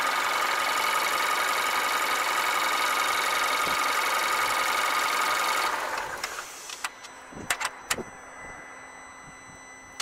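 2014 Kia Soul engine idling steadily with a faint whine over it, then switched off about six seconds in, the sound dying away; a few clicks follow.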